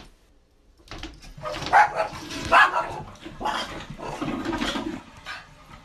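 Small dog barking and yipping in a run of loud, sharp calls that start about a second in and go on for about four seconds.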